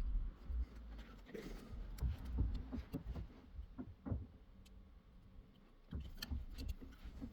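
Scattered light clicks and taps of small tools and parts being handled during circuit-board repair, over a low background rumble.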